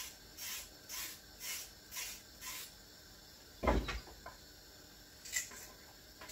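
Knife scraping the skin off a raw carrot in quick strokes, about two a second, which stop after about two and a half seconds. Then a single loud dull knock, followed by a couple of lighter knocks.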